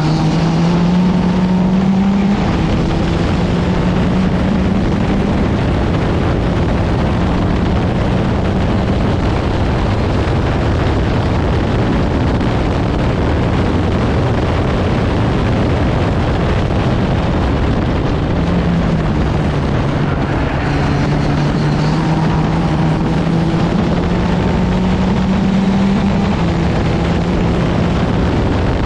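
Onboard sound of an open-wheel formula race car at speed: its engine note runs steadily and climbs slowly in pitch under acceleration, once in the first couple of seconds and again through the later part, over heavy wind and road rush.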